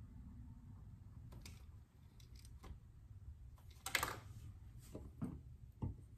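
Hands brushing loose manila rope fibres across a wooden cutting board: faint scattered rustles and taps, the loudest a short swish about four seconds in, then a couple of soft knocks near the end.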